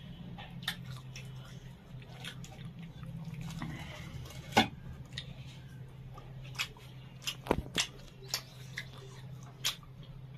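A person chewing a mouthful of chicken curry and roti, with scattered short clicks and smacks from the mouth, over a steady low hum.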